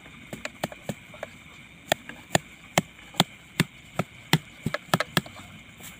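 A large knife knocking a freshly caught rice-field eel pinned on the ground, to stun it before handling. There are a few light taps at first, then a quicker run of sharp, heavier blows about two to three a second.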